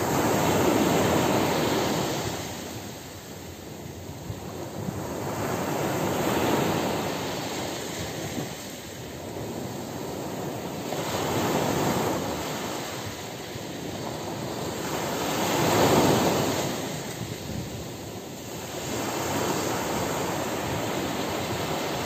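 Sea waves breaking and washing up the beach, in slow surges that swell and fade about every four to five seconds; the loudest one comes about three quarters of the way through.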